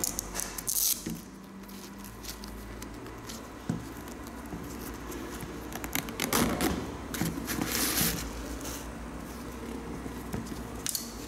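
Hands handling and flexing a suede Adidas Yeezy Boost 750 high-top sneaker, suede and fabric rubbing and rustling in short, irregular bursts as the collar is pulled open.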